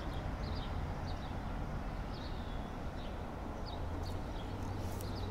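Outdoor ambience: a steady low rumble with small birds chirping, short high notes repeated a few times a second.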